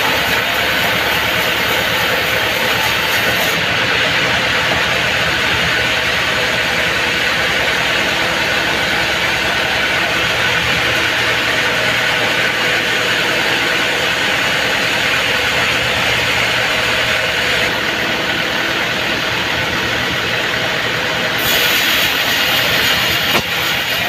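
Vertical band sawmill running steadily, its blade cutting through a mahogany log. The hissy top of the sawing noise falls away about three and a half seconds in, leaving the steady run of the machine, and comes back near the end as the blade enters the next log.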